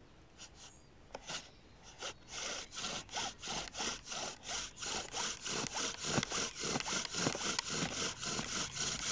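Bow drill being sawed back and forth: the wooden spindle grinds and squeaks in a freshly carved socket in the hearth board, one rasping stroke for each pass of the bow. After a few hesitant strokes it settles, about two seconds in, into a steady rhythm of two to three strokes a second that grows louder. This is the break-in stage, before the spindle and socket are run in and the sound changes.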